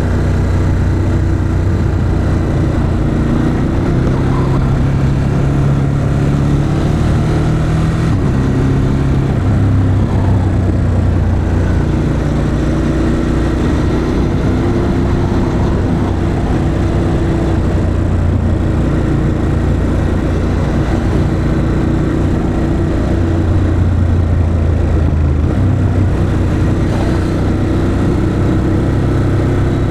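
Ducati Monster 821's V-twin engine through its stock exhaust, running at low, fairly steady revs in city riding, its pitch stepping up and down several times as the throttle and speed change.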